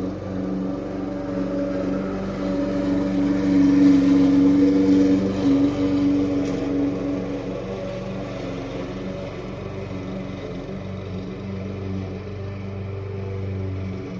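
Small gasoline engine of lawn equipment running steadily; it swells louder for a few seconds in the middle, then eases back.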